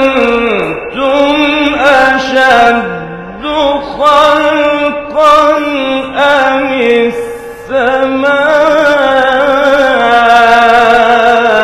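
A man reciting the Quran in a slow, melodic chant, one voice drawing out long, wavering notes phrase after phrase. The last phrase, about eight seconds in, is held steady for roughly four seconds.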